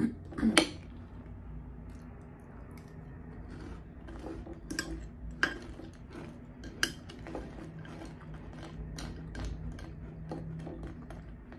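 A metal spoon clinks and scrapes against a glass bowl of cereal and milk, with scattered sharp clicks. The loudest clicks come about half a second in and a few more around the middle. Soft chewing of crunchy cereal comes between the clinks.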